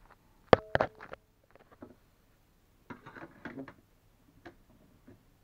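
Hard plastic clicking and knocking as a 3D-printed PLA saddle is handled and fitted onto a plastic toy horse: a sharp click with a brief ring about half a second in, a few more clicks just after it, then light ticks and rustles of handling.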